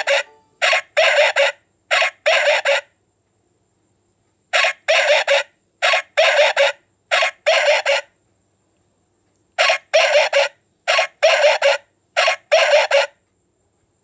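Electronic doorbell playing recorded dog barks through a small loudspeaker: three rounds of barking, each a string of quick double barks, with gaps of about two seconds between rounds. The barks sound thin and tinny, with no bass.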